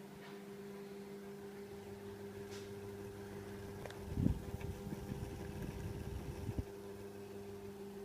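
Boshijie mini ceiling fan running with a steady electric motor hum. From about four seconds in until six and a half, a louder low rumble lies over the hum.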